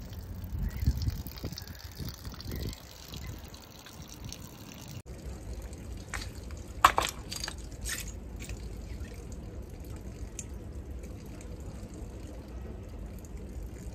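Water trickling and dripping on a tidal river foreshore. The background changes abruptly about five seconds in. A few sharp clicks come about seven seconds in, the first of them the loudest sound.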